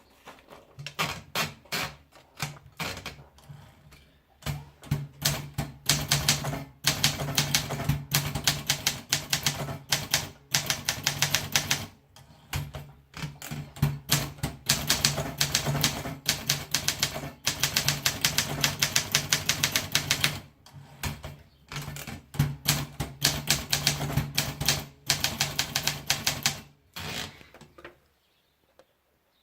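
Olympia typewriter being typed on: quick runs of key strikes with short pauses between them, stopping shortly before the end.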